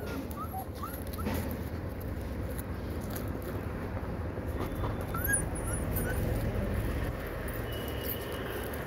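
Young puppies giving a few faint, short high whimpers, mostly in the first second and once more about five seconds in, over a steady low rumble.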